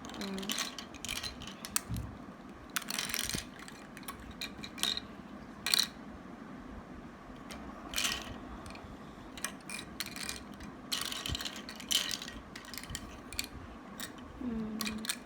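Loose plastic Rubik's cube pieces clicking and clattering against each other and the table as they are picked up and sorted by hand, in irregular clicks.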